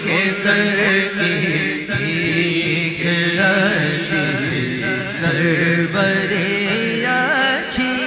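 Male voice chanting an Urdu naat (devotional kalam) in long, wavering melismatic notes, with a steady vocal drone underneath.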